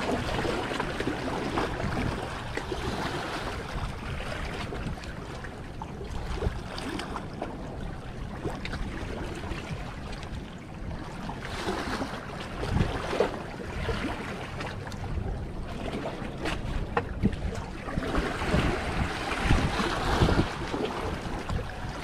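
Small waves washing against the rocks of a stone jetty, with wind noise on the microphone. The wash swells twice, around the middle and near the end.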